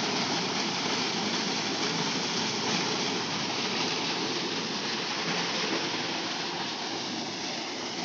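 Water from a pump's discharge pipe gushing and splashing into a concrete tank: a steady rushing of water.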